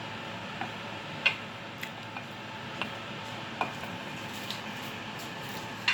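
Irregular light clicks and taps of kitchen utensils, about eight in all, over a steady background hiss; the sharpest tap comes about a second in.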